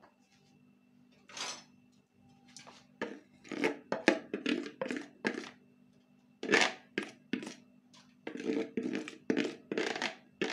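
Seasoned potato pieces being dropped and pushed by hand onto a foil-lined baking tray: a run of irregular crinkles and rustles of aluminium foil mixed with soft thuds of potatoes landing, coming in quick bursts from a few seconds in.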